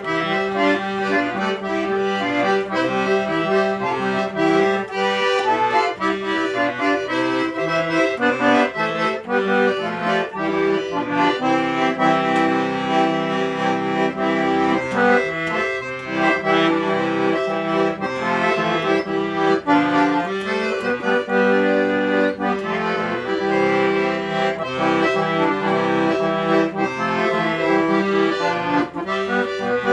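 Accordion (sanfona) playing a continuous solo tune, with held bass notes under a moving melody.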